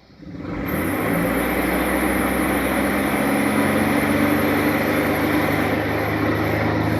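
A 2005 Chevrolet Aveo's four-cylinder engine catching about half a second in and then running steadily with the revs held up. It is a struggling engine that had oil-fouled spark plugs.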